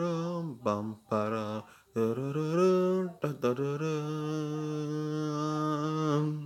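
A person humming a tune without words. It has a few short notes, then one long steady held note for about the last two and a half seconds, which cuts off sharply.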